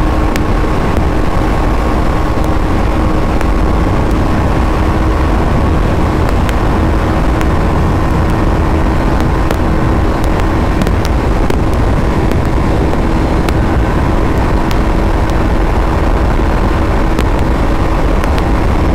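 Single-cylinder motorcycle engine running at speed, its pitch holding steady with no shifts or revving, under heavy wind rush on the microphone.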